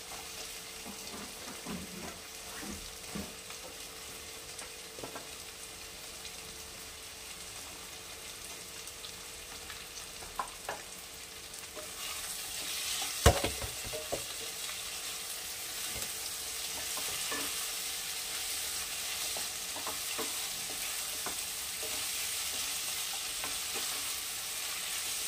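Sliced carrots sizzling in oil and masala in a kadai while a wooden spatula stirs and scrapes them, with scattered small clicks. About halfway through the sizzle grows louder, and the spatula strikes the pan once with a sharp knock.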